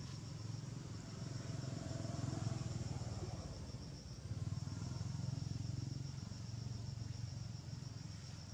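Insects chirping in a fast, even, high-pitched trill that drops out for about a second midway, over a steady low rumble like a motor running in the distance.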